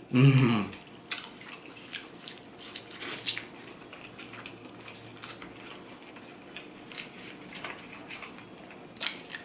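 Someone eating: a brief hum of the voice at the start, then chewing and mouth noises with a few light clicks of a metal fork against a takeout food container, about once a second early on and again near the end.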